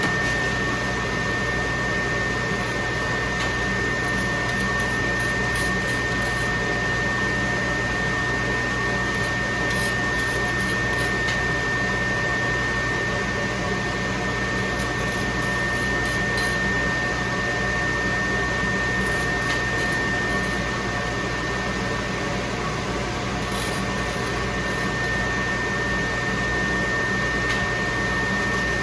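Steady mechanical hum and hiss with a constant high-pitched whine, unchanging throughout, with a few faint light ticks.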